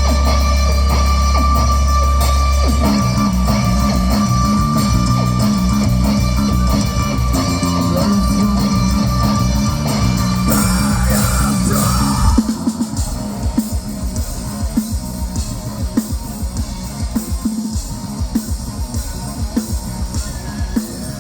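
Metal band playing live with distorted electric guitars, bass and drum kit. A low note is held for about the first three seconds, and a heavy chugging riff follows. About twelve seconds in the guitars drop back, leaving a sparser part driven by steady drum hits.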